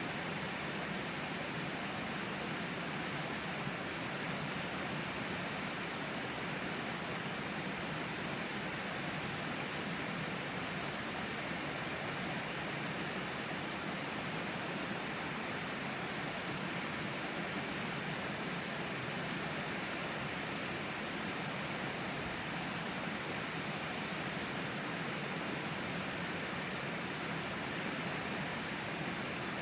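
A river flowing right beside the microphone: a steady, even rushing noise like hiss, with a thin, steady high tone over it.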